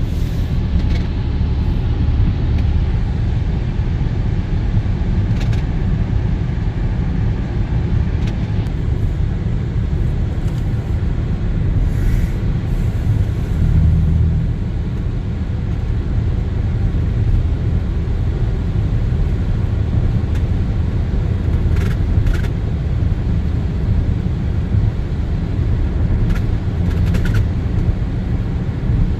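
Steady low road and engine rumble of a vehicle driving, with a few faint brief clicks in the second half.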